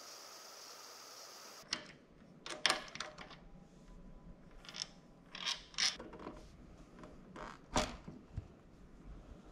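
Metal clicks and clinks of hand tools and handlebar clamp parts on a Kawasaki Versys-X 250 motorcycle as the handlebar-post bolts are worked on to fit handlebar riser spacers: about ten irregular sharp clicks and knocks. A steady faint hum comes before them and stops abruptly about one and a half seconds in.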